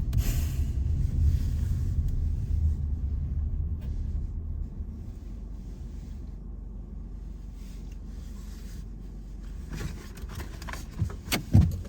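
Low rumble of a 2017 Hyundai Tucson heard from inside the cabin as it rolls in to park, easing off after about four seconds as the car slows. A few sharp clicks and knocks come near the end.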